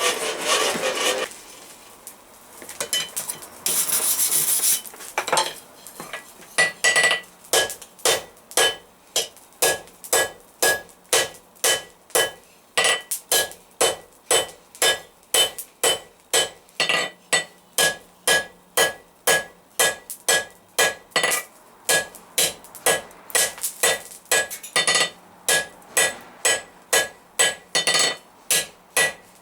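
Blacksmith's hand hammer striking hot steel bar on an anvil, drawing out a tapered point. After a few seconds of handling noise and a short hiss, steady blows begin about six seconds in, roughly two a second, each with a short ring from the anvil.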